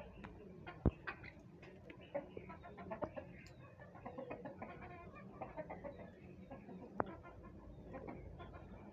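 Domestic chickens clucking in short, scattered calls, with two sharp knocks, about a second in and about seven seconds in.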